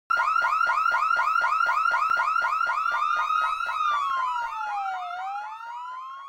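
Electronic alarm siren sounding a fast repeating chirp, about four to five a second, starting abruptly. Partway through, a second siren tone slides down in pitch and back up while the whole sound fades away.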